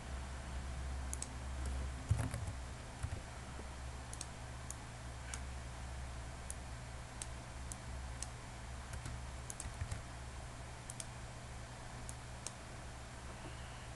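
Faint, scattered clicks of a computer keyboard and mouse, heard over a steady low hum.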